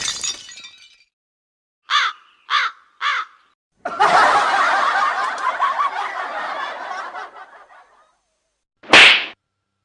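A run of comedy sound effects: the tail of a crash, then three short falling calls, then a canned audience laugh track that swells and fades out over about four seconds, and a short sharp burst near the end.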